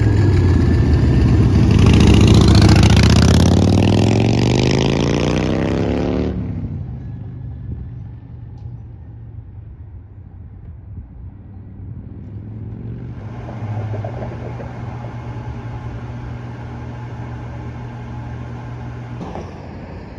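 A road vehicle accelerating, its pitch rising steadily for about six seconds before the sound cuts off abruptly. Then comes quieter street noise with a steady low hum, which grows louder about two-thirds of the way through.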